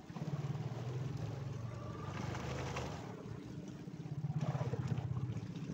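Fishing boat's engine running with a steady low throb, a brief rushing hiss rising over it about halfway through.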